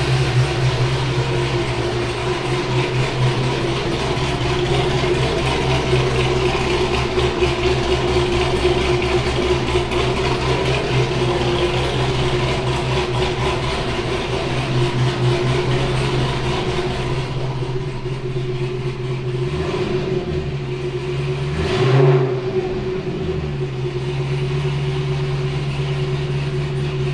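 2011 Cadillac CTS-V's supercharged 6.2-litre V8 idling steadily on new plug wires and re-gapped plugs, being checked for a cylinder misfire, with one short throttle blip late on. The owner judges it running right afterwards.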